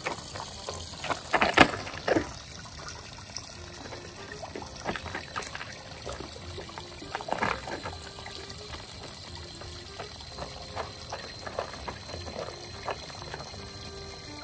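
Water trickling and splashing in a small duckling pool, with a few sharper splashes about a second and a half in and again midway. Soft music plays underneath.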